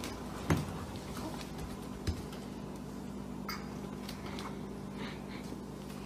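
Light knocks and ticks from a plastic toy shopping cart being pushed over a hardwood floor, over a steady low hum. The two sharpest knocks come about half a second and two seconds in.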